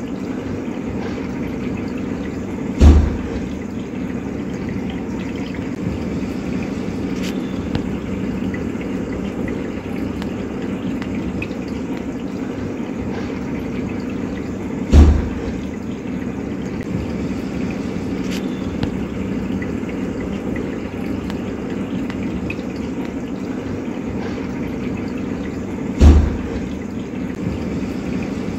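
Underwater ambience: a steady watery rush with a low hum, broken three times by a deep boom, about eleven to twelve seconds apart.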